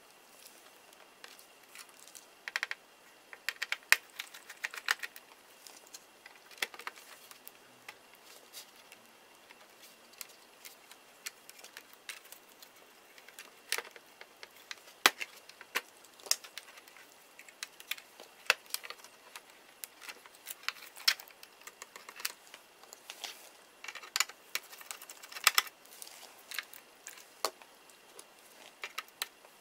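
Irregular small clicks and taps of laptop parts and small tools being handled during disassembly of a Toshiba Satellite Pro L450, some in quick clusters.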